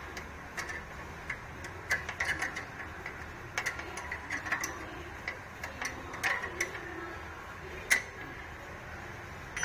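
Irregular small metal clicks and taps from a hand working the rod and nut on a sewing machine clutch motor's pedal lever, with one louder click late on.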